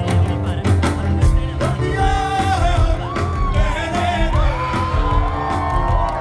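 Live rock band playing, with drums and bass guitar keeping a steady beat; a voice starts singing a wavering melody about two seconds in.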